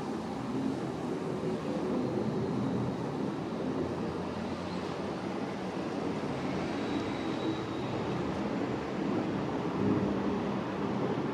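Jet airliner, a Skymark Boeing 737-800, flying overhead: a steady, distant engine rumble that slowly grows a little louder.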